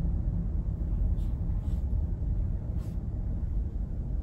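Low steady rumble of a Kia car's engine and tyres heard inside the cabin as it creeps forward at low speed, with a few faint brief higher noises.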